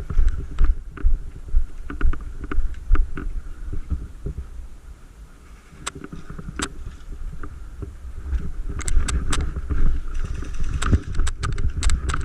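Low rumble of wind buffeting the microphone, with scattered sharp clicks and snaps that cluster near the end.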